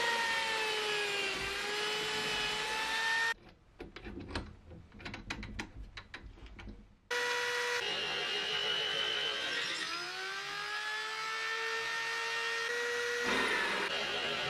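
Drill press boring into a solid steel block. The motor gives a steady whine that sags in pitch as the bit bites and picks up again as the load eases. About three seconds in it stops for a few seconds, leaving only faint clicks, then starts drilling again.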